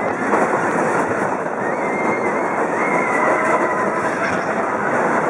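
Big Thunder Mountain Railroad mine-train roller coaster running fast along its track, heard from on board as a steady rattling rumble of the cars. A thin high squeal comes in for a second or two in the middle.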